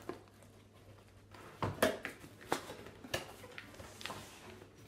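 Cardboard packaging being handled: a nail-drill box and its inner tray being lifted and set down, with a few knocks and scrapes, the loudest about two seconds in.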